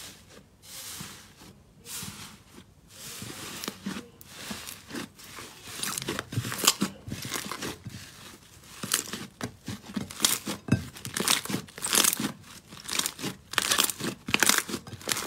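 Thick teal slime being pressed and kneaded by hand in a glass bowl: repeated crackling, crinkly squishes, spaced about a second apart at first and then coming fast and louder in the second half.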